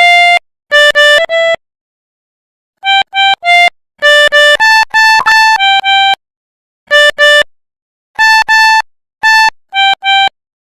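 Pianika (melodica) playing the 'telolet Basuri' bus-horn tune: short, clipped notes in quick pairs and runs of three or four, with silent gaps between the phrases.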